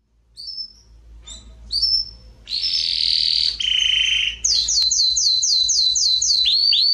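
Domestic canary singing: a few faint short chirps, then buzzy rolls, then a quick run of repeated down-sweeping notes, about four a second, that drop to a lower pitch near the end.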